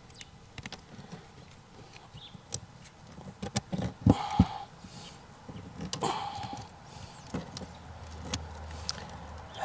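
Handling noise from fitting a plastic cartridge bilge pump (Attwood Tsunami T500) down into a boat's bilge. Scattered clicks, knocks and scrapes, with two sharp knocks about four seconds in.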